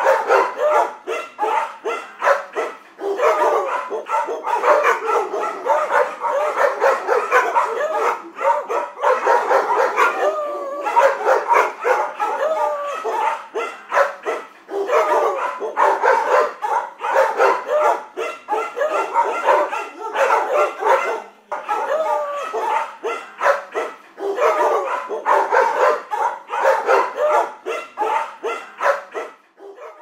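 Several dogs barking in quick, overlapping runs, with short pauses now and then.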